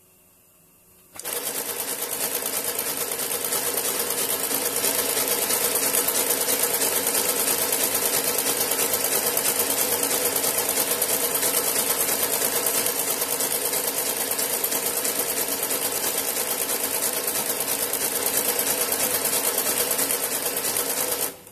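XB0320 automatic outside-seam pattern sewing machine stitching around a shoe upper. It starts about a second in, runs at a steady, fast stitching rate, and stops just before the end.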